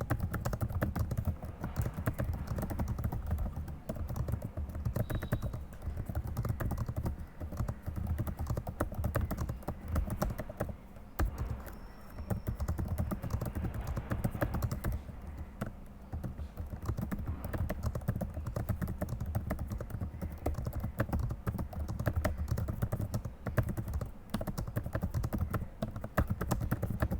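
Fast, continuous typing on a computer keyboard, a steady clatter of key strokes with a few brief pauses.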